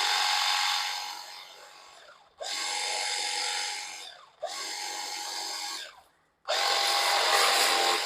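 Compact portable electric pressure washer's pump motor running in four separate bursts with a steady whine and spray hiss, stopping fully between them; the first burst fades out as the pump is still priming, drawing water up from the bucket.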